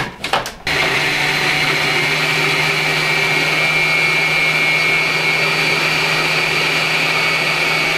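A few short clicks, then, under a second in, a small electric food processor starts and runs steadily with a constant hum and a high whine, blending a thick avocado and hemp seed mixture into a purée.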